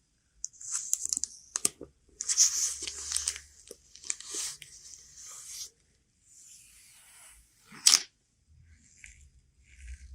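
Packaging being torn open and handled, in several irregular rustling, tearing bursts with short pauses between them and one sharp click about eight seconds in.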